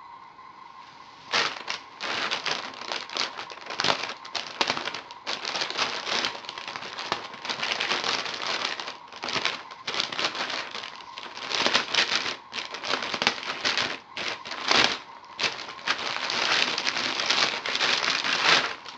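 Plastic poly mailer bag crinkling and rustling as it is opened and the contents pulled out, starting about a second in with many irregular sharp crackles.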